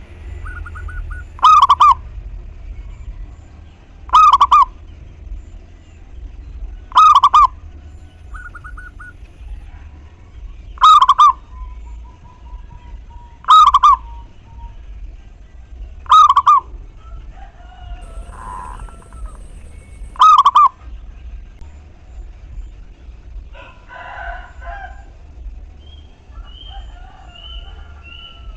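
Zebra dove singing: a short, loud burst of rolling coos, repeated seven times every three seconds or so. Fainter calls from other birds sound between the bursts and near the end.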